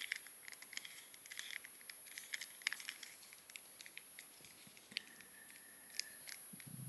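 Faint, scattered small clicks and light rubbing of a plastic S.H. Figuarts action figure being handled as its joints are moved into poses, with one sharper click about five seconds in.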